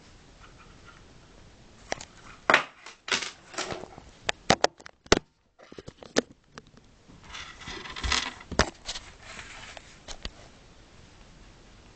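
A small padded camera pouch handled on a wooden table: scattered sharp clicks and knocks starting about two seconds in, then a stretch of rustling and scraping around eight seconds in.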